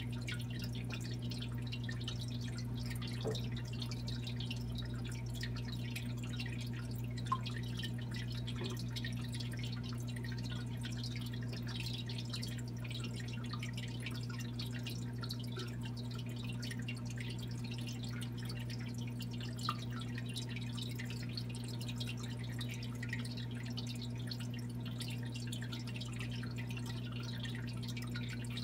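Aquarium water trickling and dripping over a steady low pump hum, with many tiny ticks of bursting bubbles. A few small, sharper plinks stand out now and then.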